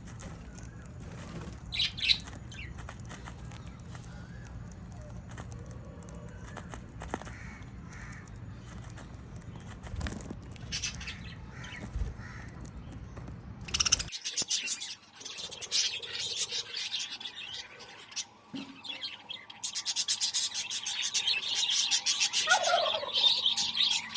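Small pet parrots chirping. A few scattered chirps sound over a low steady hum, then about two-thirds of the way through comes a sudden switch to dense, rapid chattering that grows louder toward the end.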